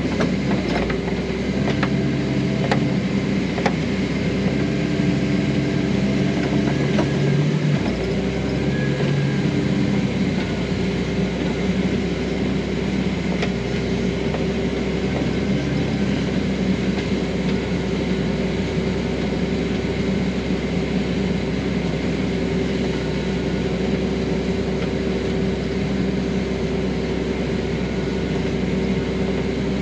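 Large farm machine's engine running steadily, a constant hum with a few steady whining tones over it. A few light clicks come in the first several seconds.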